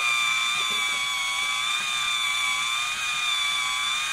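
Small electric motor of a battery-powered toy drill running with a steady high whine as it turns a plastic screw in a toy construction kit.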